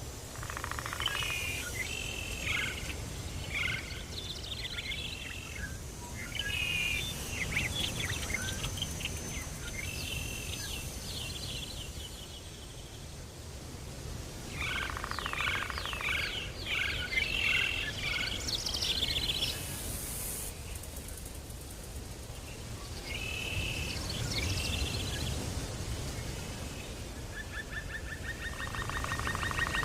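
Several birds calling and chirping in repeated short phrases over a steady low background rumble.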